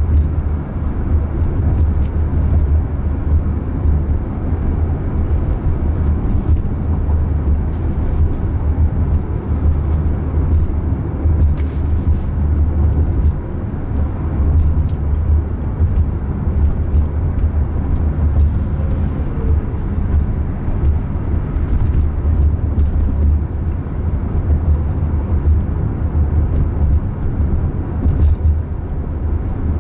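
Road and tyre noise inside the cabin of a Waymo Jaguar I-Pace electric car driving along a street: a steady low rumble with no engine note.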